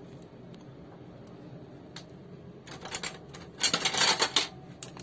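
Frozen ice candies in plastic wrappers clattering and rustling against each other and their plastic tub as it is handled: a flurry of sharp clicks and rattles from about three seconds in, lasting under two seconds.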